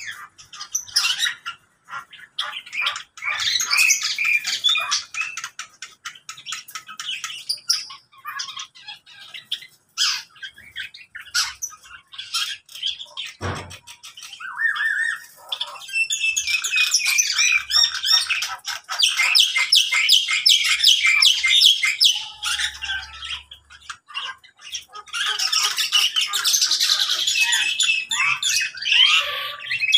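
Mixed aviary flock of lovebirds and other small cage birds calling all at once: a dense chorus of shrill chirps and squawks. It thickens about halfway through and again near the end.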